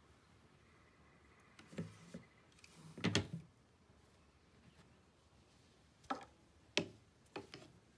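Several short wooden knocks and clunks from handling a rigid heddle loom. The loudest comes about three seconds in, with others around two seconds and again near six and seven seconds.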